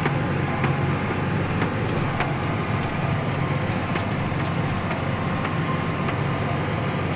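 Tractor engine running steadily under load, heard from inside the cab as an even low drone, with a few faint clicks scattered through it.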